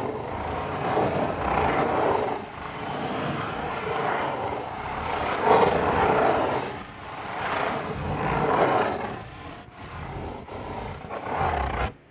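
Fingers scratching in circles on the lid of a corrugated cardboard pizza box: a continuous rasping scrape that swells and eases with each circle, about once a second. It stops suddenly near the end as the hand lifts off.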